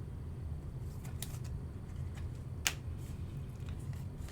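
Trading cards being handled: scattered light clicks and card slaps, the sharpest just under three seconds in, over a steady low hum.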